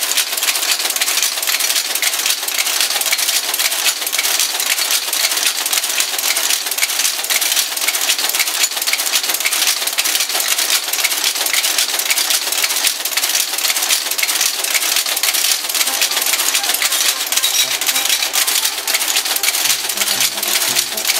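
Monotype composition caster, driven through the air valves of a Welliver computer interface, running: a steady, dense metallic clatter of rapid clicks. Faint music comes in under it near the end.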